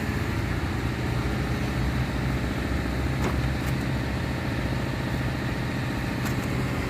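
A motor running steadily with a low, even hum, with a couple of light clicks about three and six seconds in.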